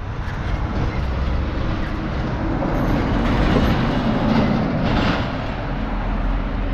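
Steady rumble of wind and tyre noise while riding along an uneven highway surface, swelling in the middle and easing off towards the end.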